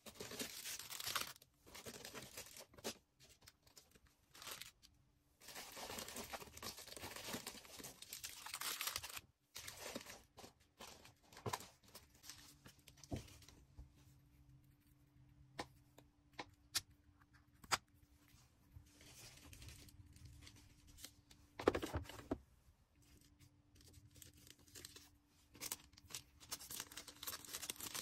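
Orders being packed by hand: plastic packaging crinkling and tearing in bursts, then a run of small sharp clicks and taps, with another short burst of handling partway and more crinkling near the end.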